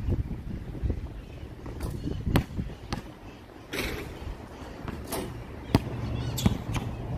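A basketball being dribbled on a hard outdoor court: a series of sharp single bounces, mostly in the second half, about half a second to a second apart.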